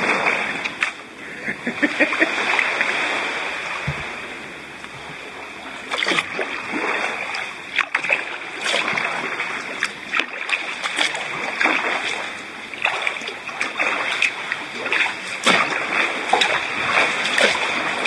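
Sea kayak paddle strokes splashing and dripping, one after another, with water sloshing around the moving hull.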